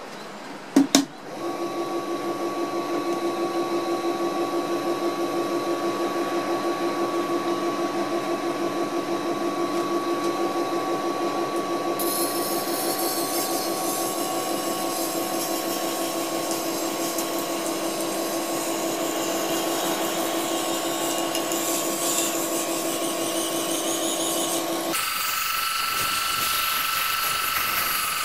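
Electric wet knife-sharpening machine: two clicks about a second in, then its motor runs with a steady hum as the whetstone wheel spins. From about halfway, a steel kitchen knife blade held against the wet stone adds a gritty scraping hiss. Near the end the tone shifts abruptly to a higher whine while the grinding goes on.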